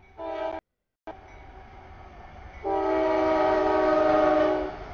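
A freight locomotive's multi-chime air horn sounds for a grade crossing: a short blast right at the start, then a long blast of the same chord lasting about two seconds, over a low rumble. The audio cuts out for about half a second after the first blast.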